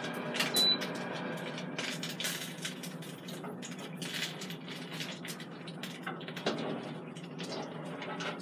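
A single short electronic beep from the air fryer oven's control panel about half a second in. Then light clicks, knocks and scrapes of a metal food tray and grill grate being handled and slid out of the oven, with a louder knock around six and a half seconds, over a steady low hum.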